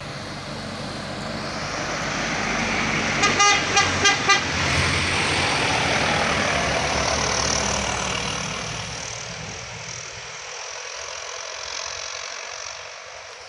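Heavily loaded truck's diesel engine pulling hard up a steep grade as it passes, swelling and then fading as it climbs away. A horn gives a quick run of short toots about three to four seconds in.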